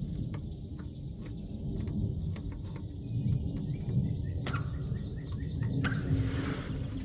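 Small birds chirping: a run of short high chirps a few seconds in, over a steady low rumble, with scattered light clicks and a brief rustling burst near the end.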